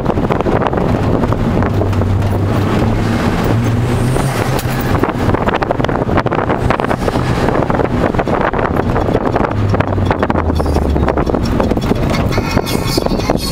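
Cabin sound of a first-generation Ford Focus being driven, heard from inside the car: a steady rush of wind and road noise over the engine. The engine note climbs in pitch over the first few seconds and drops lower about ten seconds in.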